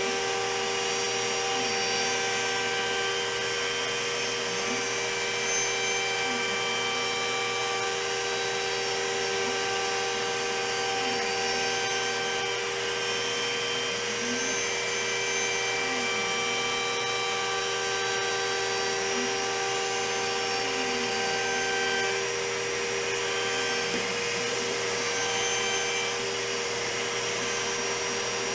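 CNC router spindle milling padauk hardwood, mixed with the steady rush of a shop vacuum hose held beside the cutter. Several steady whining tones run under the noise, and a low note dips and recovers every second or two as the cut loads the spindle.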